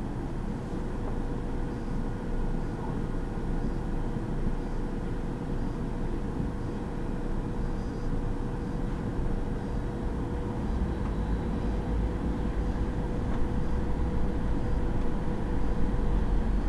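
City bus driving, heard from the driver's cab: a steady engine and road rumble with a thin steady whine over it, getting louder near the end.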